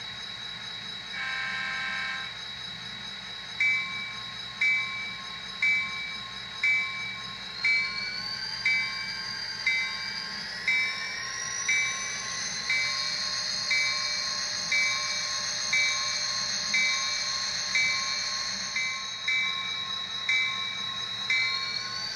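Sound decoder of an HO-scale BNSF SD40 model diesel locomotive, playing through its small onboard speaker. A single horn blast comes about a second in. Then the bell rings about once a second over the engine sound, whose whine rises in pitch at about eight seconds and again near the end.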